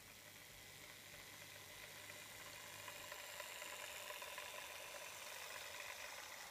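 H0-scale model NSB Di 3 diesel locomotive and its coaches running past on the track: a faint electric motor whine with the rushing of wheels on the rails, growing louder as the train comes closer.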